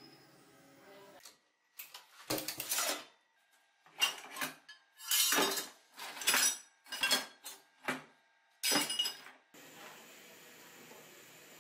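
Scrap metal pieces, brass fittings and pipe offcuts, clanking and clinking against each other in a wooden crate as a gloved hand rummages through them: a string of about eight separate clatters.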